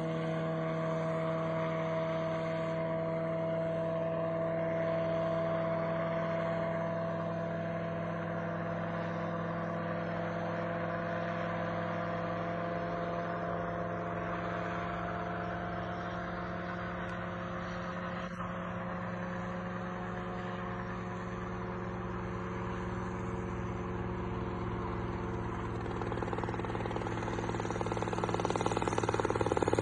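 Small single-seat helicopter flying overhead: a steady engine and rotor drone made of several pitched tones, growing louder near the end as it comes closer.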